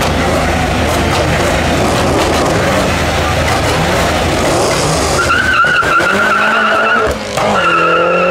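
Car engine running hard with its tyres skidding on the tarmac. About five seconds in a steady high tyre squeal sets in, and near the end the engine revs rise.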